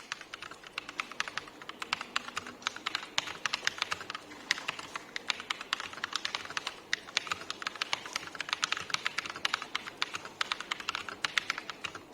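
Fast, continuous typing on a Tecware Phantom mechanical keyboard fitted with Akko CS Rose Red linear switches: a quick stream of many keystrokes a second.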